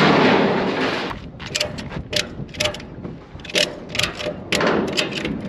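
A ratchet strap being cranked tight over a corrugated steel culvert pipe on a flatbed trailer: a run of sharp ratchet clicks, irregular, often in pairs, several a second. A loud steady noise fades out about a second in, before the clicking starts.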